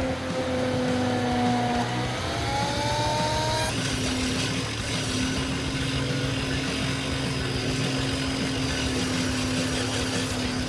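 Heavy forestry machine with a circular saw head running: a steady engine drone with a held whine. The pitch glides up and down in the first few seconds, then the sound changes abruptly about four seconds in to a steadier drone.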